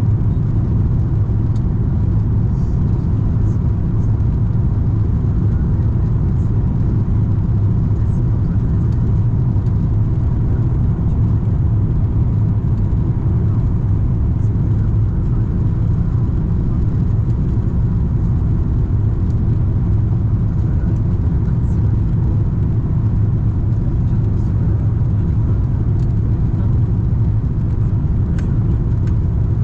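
Steady, loud cabin noise inside an Airbus A340-300 airliner: a low rumble from the engines and airflow, with a faint steady high tone above it.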